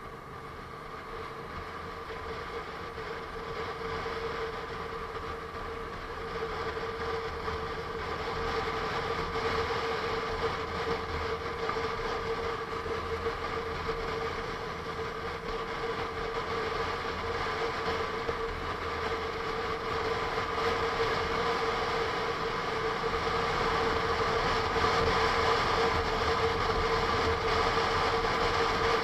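Onboard sound of a Honda NC750S DCT's parallel-twin engine running at a steady cruise under wind and road noise, with a steady whine holding one pitch. It grows gradually louder.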